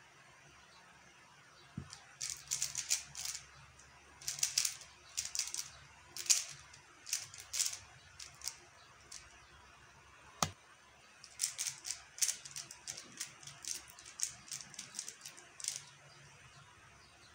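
A QiYi X-Man Tornado V1 3x3 speedcube being turned fast during a solve, with rapid plastic clicking and clacking in bursts. It starts about two seconds in. Around the middle there is a short lull broken by one sharp click, then a final run of turns that stops about two seconds before the end.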